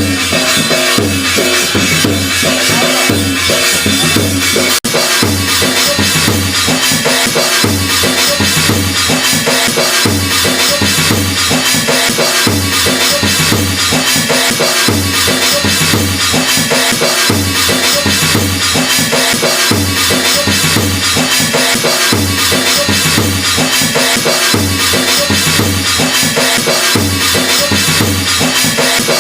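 Dhol drum and thali (a brass plate struck as a percussion instrument) playing a loud, steady, repeating dance rhythm.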